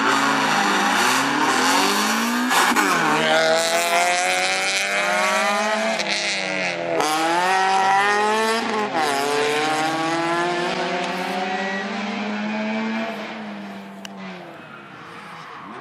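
Peugeot 206 rally car pulling away hard from the start, its engine revving up through the gears with sharp pitch drops at each of several upshifts. The engine fades as the car moves off into the distance near the end.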